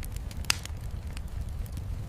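Wood fire crackling in a fireplace: scattered sharp pops and snaps, the loudest about half a second in, over a steady low rumble.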